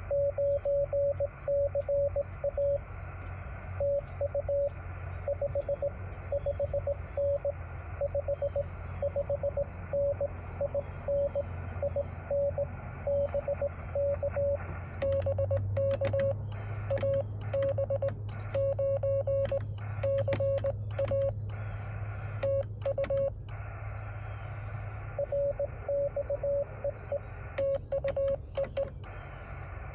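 Morse code from a Yaesu FT-817 transceiver: a single steady tone of about 600 Hz keyed in dots and dashes over receiver hiss, with short breaks between characters. Scattered crackles of static and a low hum sit underneath.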